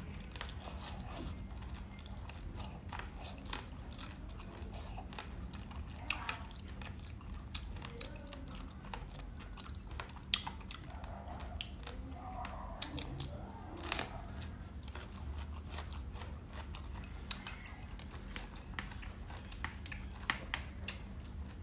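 A person chewing and biting food, with irregular crunchy clicks, over a steady low hum.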